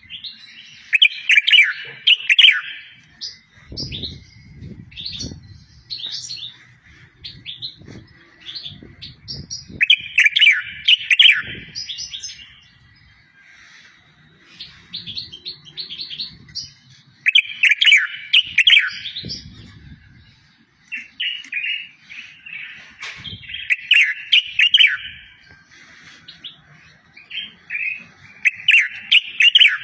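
Songbird tutor song for training goldfinches and canaries: loud, dense warbling phrases come about every seven seconds, with short chirps and trills between them.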